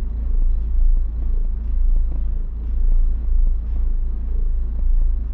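Steady low rumble that swells and eases roughly once a second.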